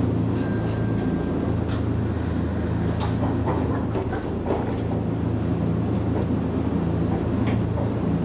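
Inside the cab of a Nankai 6000 series electric train as it starts slowly out of a station: a steady low hum with a few scattered clicks and knocks. A brief high steady tone sounds about half a second in.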